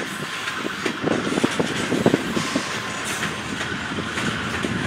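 Covered hopper cars of a freight train rolling past, their steel wheels clicking over the rail joints again and again.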